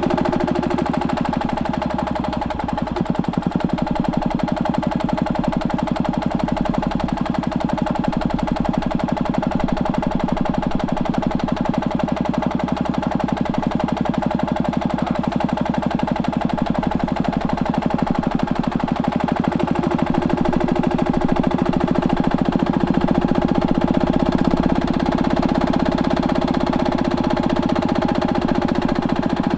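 Stuart Turner H1 stationary engine running steadily with a rapid, even firing beat, dipping briefly about two to three seconds in. It is running without a load, which the owner says it needs to level out its running.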